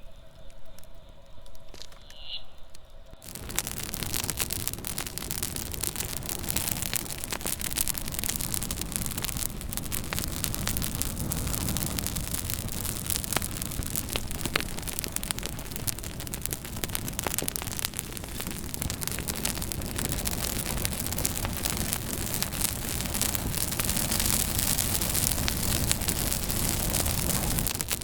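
Campfire burning, crackling and popping over a steady hiss. For about the first three seconds the crackles are sparse and quieter; then the sound jumps suddenly to a dense, louder crackle that stays steady and swells slightly near the end.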